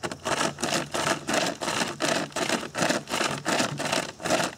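Pocket chain saw pulled back and forth through a log, its teeth rasping through the wood in quick even strokes, about three a second.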